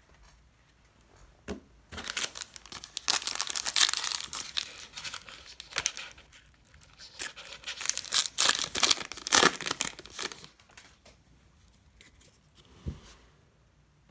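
A 2018 Panini Diamond Kings baseball card pack being torn open by hand: the wrapper rips and crinkles in bursts for several seconds, in two spells of handling.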